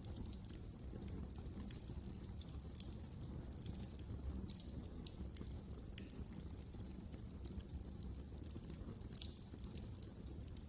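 Wood fire crackling in a fireplace: frequent, irregular sharp snaps and pops over a steady low rumble of the burning fire.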